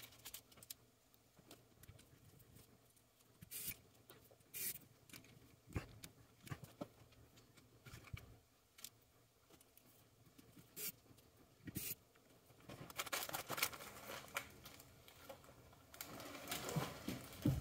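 Faint, scattered clicks and light knocks as a plastic DJI FPV drone and small parts are handled and moved on a wooden table, with a longer stretch of rustling and rubbing near the end.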